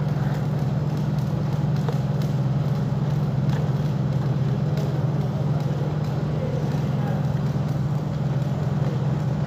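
Steady low drone of a running engine, holding an even pitch without revving, with a few faint clicks over it.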